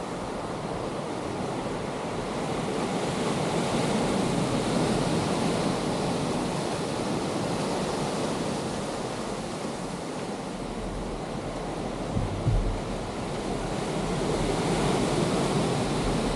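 Ocean surf breaking on a rocky shoreline: a steady wash of noise that swells and eases slowly. Wind buffets the microphone briefly about twelve seconds in.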